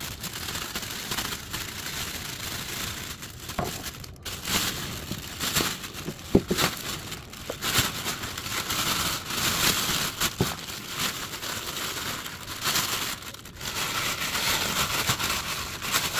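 Clear plastic food bag crinkling and crackling as hands handle it with chicken pieces and vegetables inside, with a steady rustle broken by sharp crackles all the way through.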